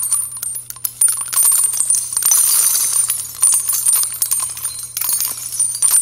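Jingling sound effect: a dense shimmer of many small, bright metallic clinks like bells or coins, over a steady low hum.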